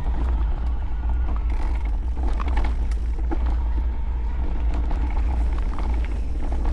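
Pole Voima electric mountain bike rolling fast down a dirt singletrack: a steady low rumble of the knobby tyres on the trail, with scattered ticks of gravel and bike parts and a faint steady whine from the assist motor.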